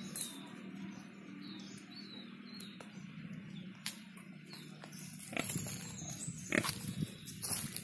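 Nursing sow grunting low and steadily while her piglets suckle, with a few short falling bird chirps over the first three seconds. Louder, sharper animal sounds come in over the last few seconds.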